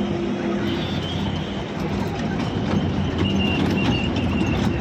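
Trackless kiddie ride train carrying children across paving, a steady rumble of its running gear with a low hum through it.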